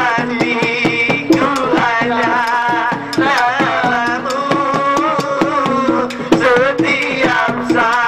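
Batak gondang music: a man singing a wavering melody with heavy vibrato over a rapid, steady pattern of tuned drum strokes.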